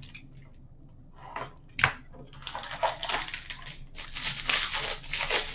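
Crinkling and rustling of plastic and foil wrapping as a hockey card box is unwrapped and its pack handled, preceded by one sharp click a little under two seconds in. The crackle grows denser and louder toward the end.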